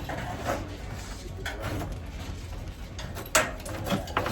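Scattered knocks and scrapes of hand work on a furnace being removed, the loudest a sharp knock about three and a half seconds in.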